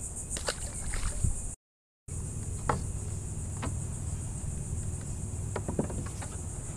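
Steady high-pitched insect chorus from the mangroves, with scattered light knocks and splashes of a kayak paddle against the hull and water. The sound cuts out completely for about half a second near two seconds in.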